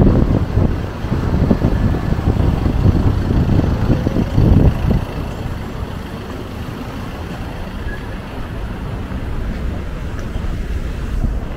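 City street traffic noise: cars passing on the road, a low steady rumble that is louder for the first five seconds or so, then eases to a steadier, lower level.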